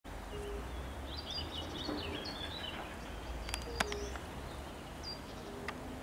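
European fire-bellied toads calling: short, soft, level hooting notes, one every second or two. Small birds chirp and twitter higher up, with two sharp clicks just past the middle and a low rumble underneath.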